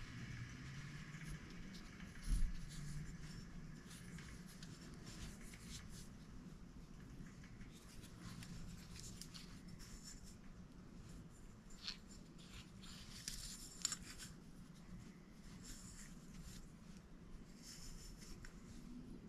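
Faint handling sounds of a cast iron step pulley being turned over in the hands: light scraping and ticking of skin and fingers on the metal, with one sharper knock about two seconds in, over a low steady shop hum.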